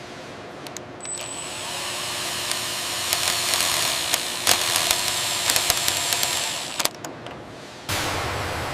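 Steady machine whirring with scattered metallic clicks and knocks. It swells about a second in, dips briefly, then gives way abruptly to a different steady mechanical hum near the end.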